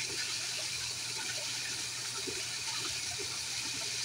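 Water running steadily into a small fish pond: a constant splashing hiss with small bubbling plops scattered through it.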